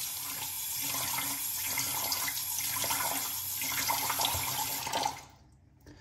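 Bathroom tap running into a sink while the face is rinsed off after a shave. The tap is shut off about five seconds in.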